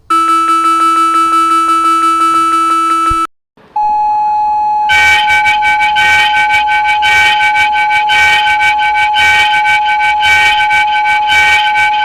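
Emergency Alert System alarm tones: a harsh, buzzing steady tone for about three seconds, then after a brief gap a steady high-pitched tone, joined about a second later by rapid warbling electronic chirps that keep going.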